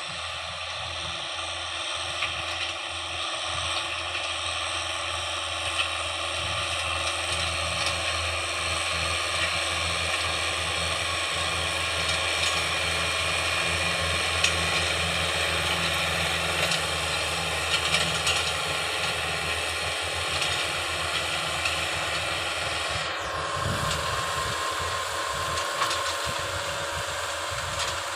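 A farm machine's engine running steadily under a constant mechanical clatter, with scattered small clicks and knocks. The sound shifts a little near the end.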